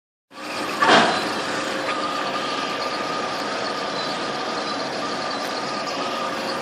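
KQM-1 cable-stripping machine's motor starting up and running steadily with a steady whine, set to run very fast. A brief loud burst of noise comes about a second in, just after the sound begins.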